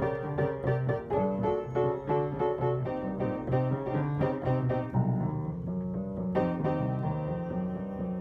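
Background music led by piano, with quick repeated notes over a steady bass line.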